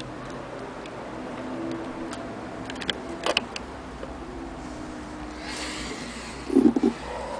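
Light mechanical ticks and clicks from an antique Singer 48K hand-crank sewing machine's mechanism as it is handled, with a short cluster of louder knocks about six and a half seconds in.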